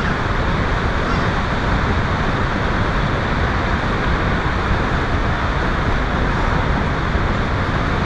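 Snoqualmie Falls, a tall waterfall, plunging into its pool: a steady, even rush of falling water.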